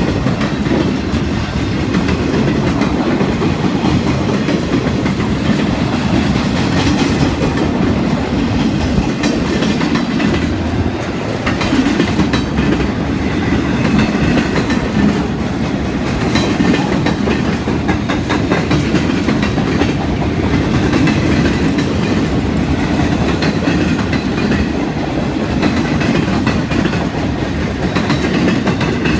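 Freight train's loaded flatcars rolling past: a steady rumble of steel wheels on the rails with a run of clicks as the wheels cross rail joints.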